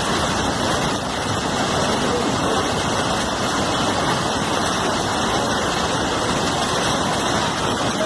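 Muddy floodwater of a swollen river rushing and churning past in a steady, loud wash of noise.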